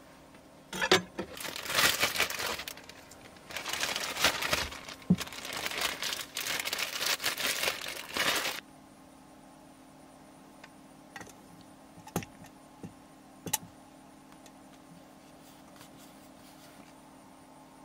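Thin plastic food packaging being crinkled and crumpled in the hands, in irregular crackly bursts that stop abruptly a little past the halfway point. A few faint clicks follow.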